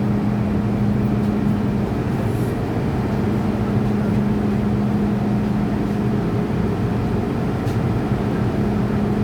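MTR M-Train electric multiple unit running at a steady speed, its wheels rumbling on the rails under a constant low hum.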